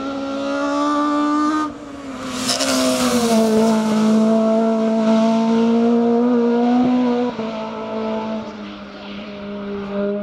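Rally car engines running hard at high revs as cars climb a hill-climb course, one car after another. The engine note holds steady and dips a step about three seconds in and again about seven seconds in, with a rushing hiss about two and a half seconds in.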